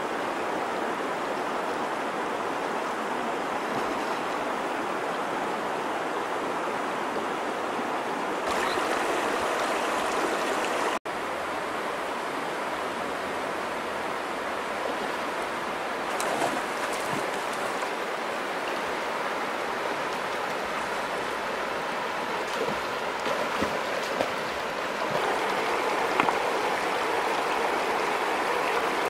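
Shallow river rushing steadily over rocks, with a few faint splashes in the second half.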